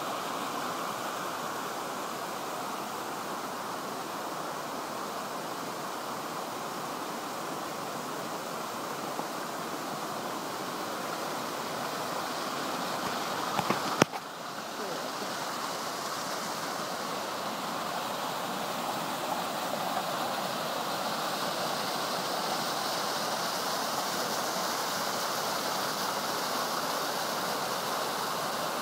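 Small mountain waterfall and stream rushing steadily over rock, a continuous water noise. A single sharp click about halfway through, after which the rush sounds hissier.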